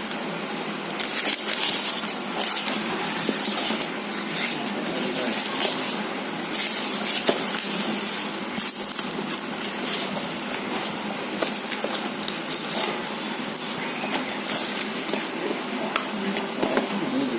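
Plastic packaging being handled: continuous crinkling and rustling, dotted with many small clicks.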